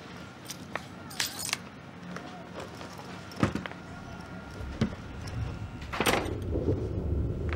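Clicks and rattles of a room door's handle and latch as the door is shut and fastened, with the loudest knock about six seconds in.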